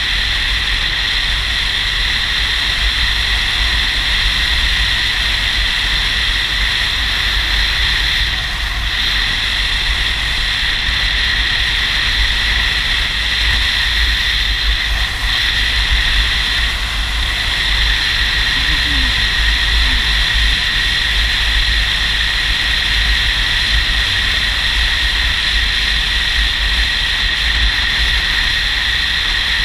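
Steady rush of wind and road noise from a touring motorcycle on the move, a deep rumble under a constant high hiss, with the engine buried in it. The hiss briefly dips twice, about a third and about halfway through.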